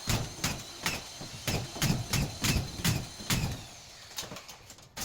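Repeated sharp knocks on construction material, about two a second, over a faint steady high-pitched whine, cut off suddenly near the end.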